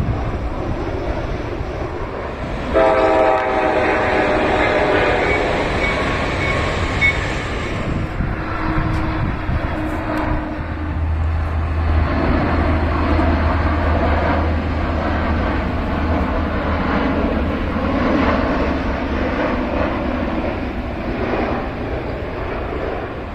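Train horn sounding a multi-tone chord for about five seconds, followed by the steady rumble of a train running past.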